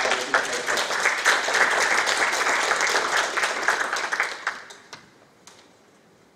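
Audience applauding: dense hand clapping that dies away about four and a half seconds in.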